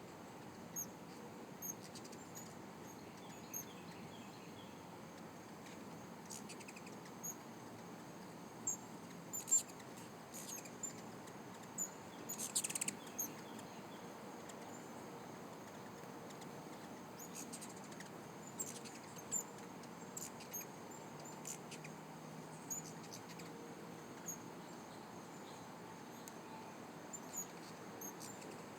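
Hummingbirds chirping: scattered short, high chirps, with a cluster of louder ones around ten to thirteen seconds in.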